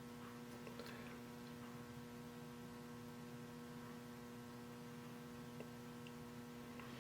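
Low, steady electrical mains hum, with a few faint light clicks.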